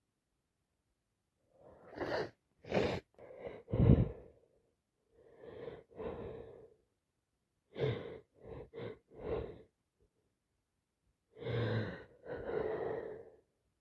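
A woman with a heavy head cold gasping in sharp, wheezy breaths as she builds up to sneezes, then sneezing, in several rounds. The loudest burst comes about four seconds in.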